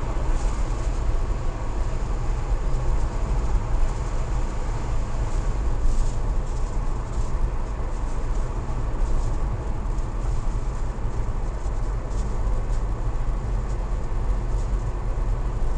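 Car driving on a paved road, heard from inside the cabin through a dashcam: a steady low rumble of engine and tyre noise.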